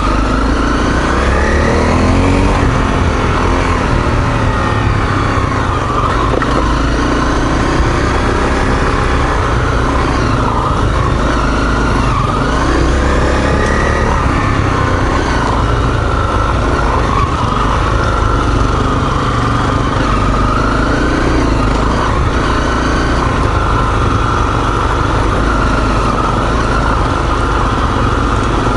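Single-cylinder dual-sport motorcycle engine running on a trail ride, its pitch rising and falling with throttle changes.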